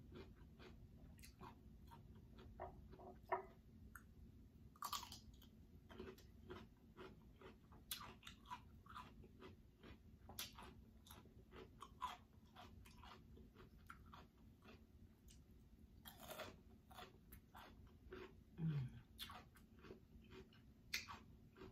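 Faint, close-up sounds of a person biting and chewing roast Cornish hen, with irregular small clicks and crunches from the mouth and food. A short low hum comes about three-quarters through.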